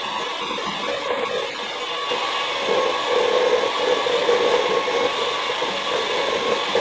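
Electric hand mixer running steadily, its beaters whirring through pancake batter in a metal bowl; the whir gets a little louder after about two and a half seconds.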